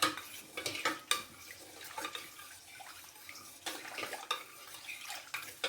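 Spoon clinking and knocking against a bowl while sour cream is stirred together with water into a sauce, with a wet sound from the liquid. The knocks come thickest in the first second and again near the end.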